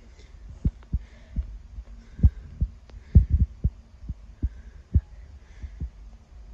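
Handling and movement noise on the phone's microphone: about a dozen irregular dull low thumps, the loudest around two and three seconds in, over a steady low rumble.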